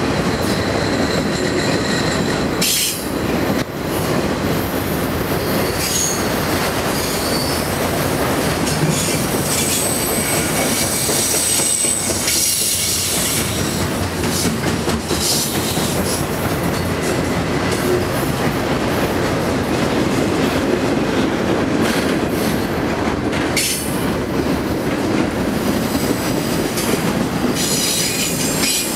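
Freight train cars, autoracks and then double-stack container cars, rolling steadily past on a curve. The wheels squeal now and then in thin, high-pitched tones over the rolling rumble.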